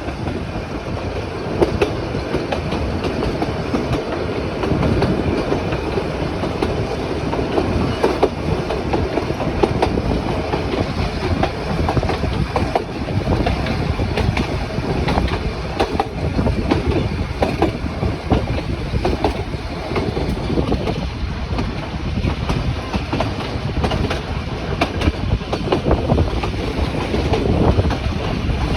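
Nilgiri Mountain Railway toy train running along its metre-gauge track: a steady rumble of the carriages with frequent short knocks from the wheels on the rails.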